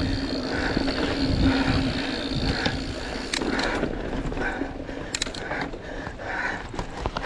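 Mountain bike on a rough dirt trail, its rear freehub ratcheting as it coasts, with a few sharp knocks from the bumps around the middle.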